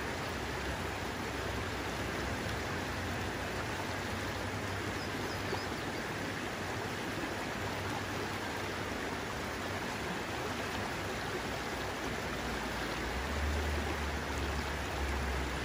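Steady rushing wash of a mountain river, with a low rumble joining in about thirteen seconds in.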